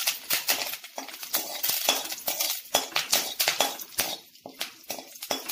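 Perforated steel spoon scraping and clinking against an iron kadai while stirring curry leaves and crushed garlic frying in hot oil, with a sizzling hiss and irregular crackles underneath.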